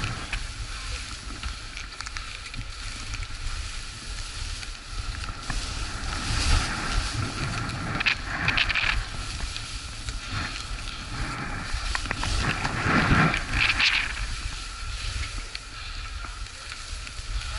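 Skis scraping and hissing over chopped-up snow during a run, with wind buffeting the microphone; the scraping swells louder twice, about eight and thirteen seconds in, as the skier turns.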